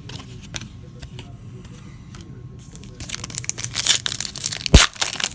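Faint clicks of cards being handled, then, about three seconds in, loud crackling and crinkling of plastic trading-card packaging, with one sharp thump near the end.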